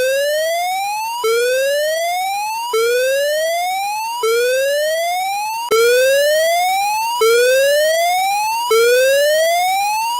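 Electronic whooping alarm tone: a buzzy pitch rising steadily over about a second and a half, then snapping back down and starting over, repeated about seven times.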